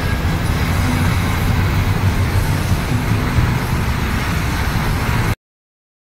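Steady low rumble of road and tyre noise heard from inside a vehicle's cabin while driving on a snow-covered highway, cutting off suddenly about five seconds in.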